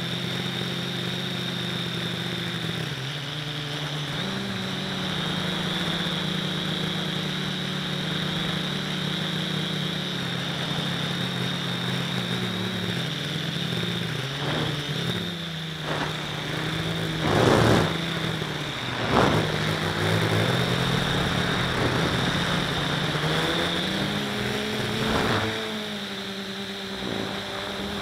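FPV quadcopter's electric motors and propellers buzzing in flight, the pitch stepping up and down with throttle changes, over a steady high whine. Two brief, louder rushes come about two-thirds of the way through.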